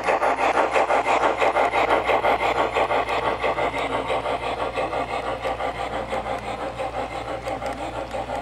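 Model steam locomotive's DCC sound decoder playing a steady steam chuff, about five chuffs a second, over a low hum, growing gradually quieter as the engine runs past.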